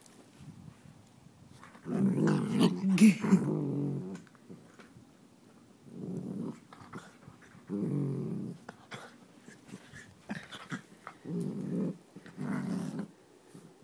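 Dogs growling in rough play, in bursts: a long, loud growl about two seconds in, then shorter growls every couple of seconds.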